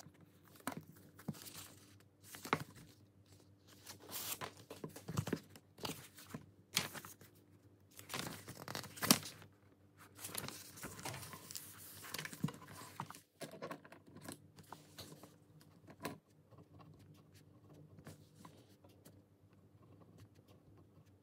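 Faint, irregular clicks, taps and crinkling rustles of small things being handled, busiest in the first two-thirds and thinning out toward the end.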